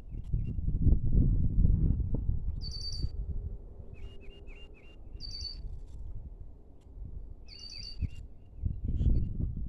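A bird calling repeatedly in the open: a short high call about every two and a half seconds, with quick runs of three or four lower notes in between. Under it a low rumble swells, loudest in the first couple of seconds and again near the end.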